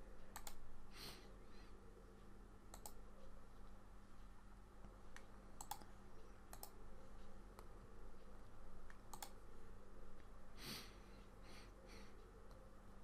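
Scattered faint clicking at a computer: about ten sharp clicks a second or more apart, some in quick pairs, over a steady low electrical hum.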